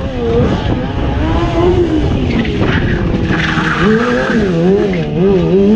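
Stunt motorcycle engine revving, its pitch swinging up and down again and again as the bike circles on concrete. A tyre squeals and skids a little over three seconds in.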